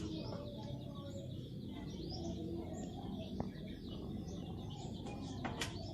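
Birds chirping: many short, high calls scattered throughout, over a steady low background noise.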